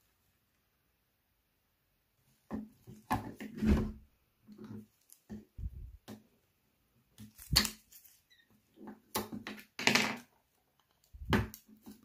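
Irregular clicks, knocks and rubbing as gloved hands and a pointed tool work a cordless hair clipper's plastic housing, prising the battery pack out. It starts after about two and a half seconds of quiet.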